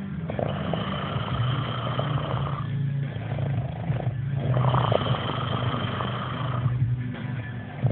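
Loud, buzzy snoring in repeated breaths, each lasting a second or two with brief pauses between them.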